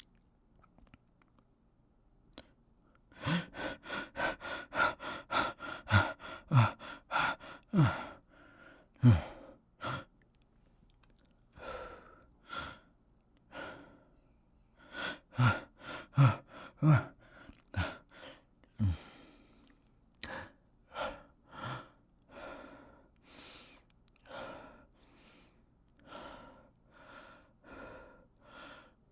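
A person breathing hard and fast through the mouth, about two quick breaths a second, several of them voiced and dropping in pitch like gasps. It begins after about three seconds of near silence, stops briefly near the middle, and the breaths slow to about one a second near the end.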